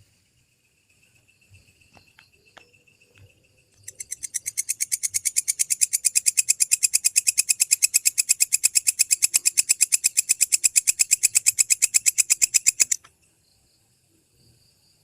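Walang kecek katydid calling: a fast, even train of dry clicking pulses, about ten a second. It starts about four seconds in, builds over a second or two and stops abruptly near the end. Before it, only a faint thin high tone.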